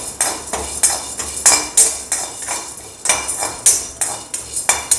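Perforated steel ladle stirring chana dal and black urad dal as they dry-roast in a hammered steel kadai, scraping and clinking against the pan in repeated strokes, two or three a second.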